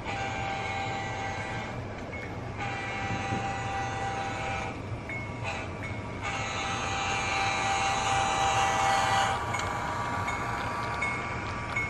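Diesel locomotive horn sounding a chord in the grade-crossing pattern: two long blasts, a short one, then a final long blast. This is the warning for the road crossing the Santa Fe locomotive is approaching.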